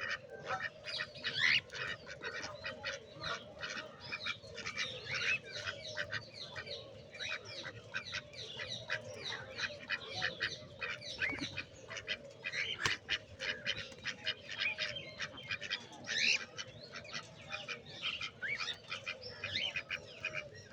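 A flock of aviary birds calling at once: a dense, continuous chatter of many short overlapping calls.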